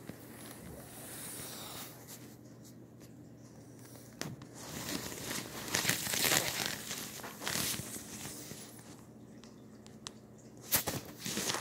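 Rustling and crinkling of a collapsible fabric cat tunnel as a kitten moves in it, loudest in the middle. A few sharp taps come near the end.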